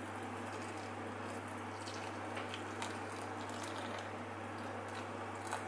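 Water pouring steadily from a jug into a bowl of dried mushroom slices, a continuous splashing trickle with a few small drips and ticks, over a low steady hum.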